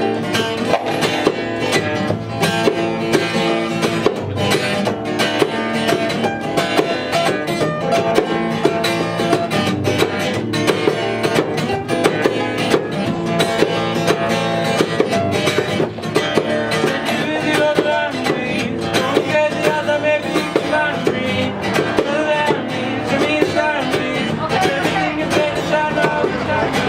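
Acoustic guitars playing a tune, with bongo and tambourine hits throughout.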